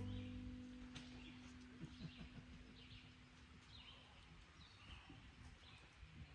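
Faint bird calls: short high chirps repeating roughly once a second over quiet background.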